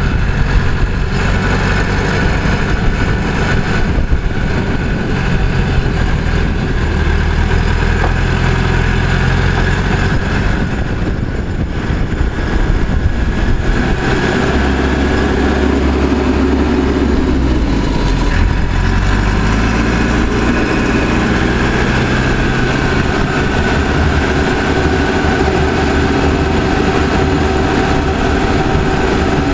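Caterpillar 416C backhoe loader's diesel engine running as the machine drives. Its pitch shifts partway through, dipping briefly and climbing back about two-thirds of the way in.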